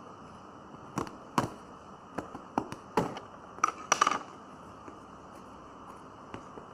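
Handling noise: a scattered series of sharp clicks and taps, densest a few seconds in, as things are handled and set down.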